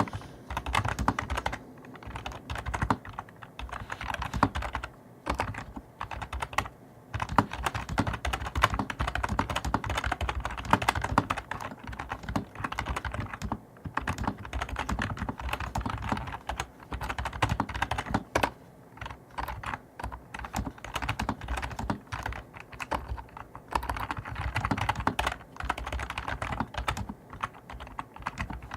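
Fast typing on a NewMan GL800V2 gaming keyboard: a dense run of key clicks with brief pauses between bursts, picked up by a microphone right next to the keys.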